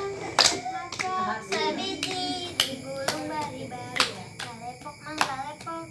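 Children singing a chant together while slapping and clapping their hands in a steady beat, as in a children's hand-clapping game.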